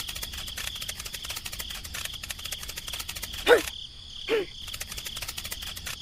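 Insect chirring like crickets: a rapid, even clicking over a steady high tone. Two short, loud squeaks falling in pitch cut in a little past the middle, about a second apart.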